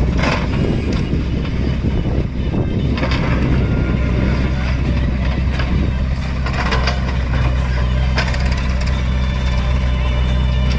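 A heavy diesel engine running steadily at a constant speed, with a few brief clatters over it.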